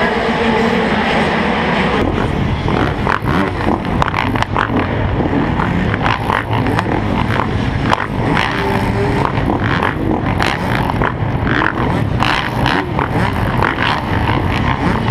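Several motocross bike engines running around a supercross starting line, revs rising and falling, heard close up through a helmet camera.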